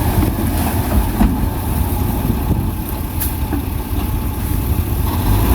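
Diesel engine of heavy earthmoving machinery, a bulldozer or dump truck, running steadily at low revs, with a few short sharp knocks.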